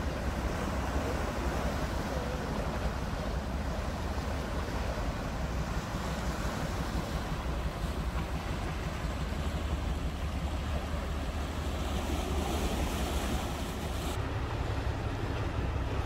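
Sea waves washing and foaming around rocks at the foot of a cliff, a steady surf noise with wind rumbling on the microphone. About fourteen seconds in the higher hiss drops away suddenly while the low rumble carries on.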